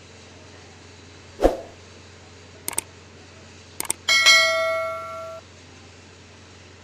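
A dull thump, then two quick double clicks, then a bright bell ding that rings for about a second and cuts off suddenly, over a steady low hum.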